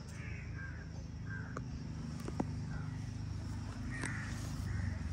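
Crows cawing repeatedly, short harsh calls every second or so, over a steady low rumble, with one sharp tick a little after two seconds in.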